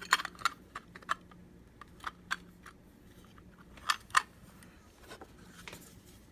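Parts of a digital keypad deadbolt lock being handled and fitted together: scattered sharp clicks and taps of small plastic and metal pieces, a cluster at the start and a louder pair about four seconds in.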